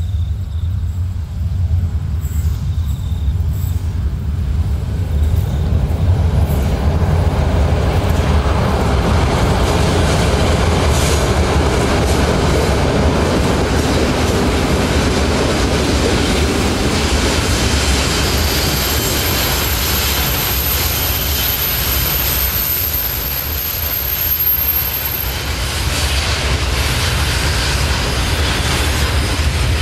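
KiwiRail EF-class electric locomotive hauling a container freight train slowly up a grade. Its rumble builds as it approaches and passes close by, then the loaded container wagons' wheels roll and clatter on the rails. A thin high squeal comes in for several seconds midway through.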